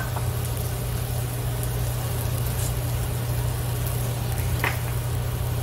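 A steady low mechanical hum with an even hiss of beef sizzling on a tabletop barbecue grill; one short click about four and a half seconds in.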